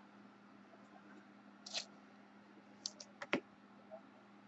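A few faint handling sounds over a low steady hum: a short rustle, then a quick cluster of four small clicks about three seconds in, the last the loudest.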